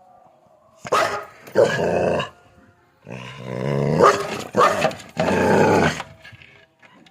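A dog barking in about five loud, drawn-out barks, the first starting about a second in and the last ending around six seconds in.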